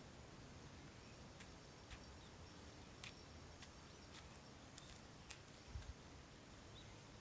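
Near silence with a few faint, light ticks at irregular intervals and one soft, low thump about six seconds in.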